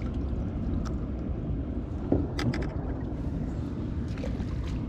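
Boat motor running steadily at low speed, a low rumble, with a few light knocks about two seconds in.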